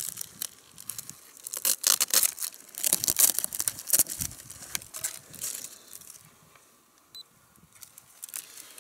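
Close handling noise of a cardboard model plane being worked on by hand: irregular crackling, rustling and scraping, busiest in the first half. It dies down to almost nothing a little past the middle, with a few scattered clicks near the end.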